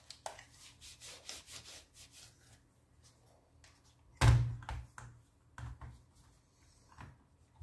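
A paper towel rubbing across the netbook's plastic case in quick strokes, then the battery pack knocking loudly into its bay about four seconds in, followed by a few lighter knocks as it is pressed and seated.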